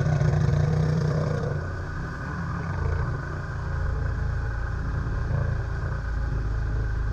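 Jet ski engine running at speed through the water, then the throttle eases off about a second and a half in and it settles to a lower, steady running sound as the craft slows.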